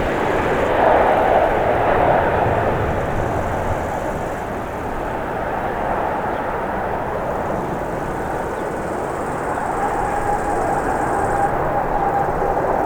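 Jet engines of a Boeing 737 MAX 9 (CFM LEAP-1B turbofans) on arrival, a steady rushing roar. A faint high whine joins it about ten seconds in.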